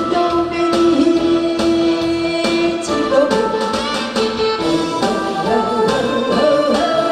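A Korean trot song sung live by a solo singer into a handheld microphone over instrumental accompaniment, with one long held note in the first three seconds.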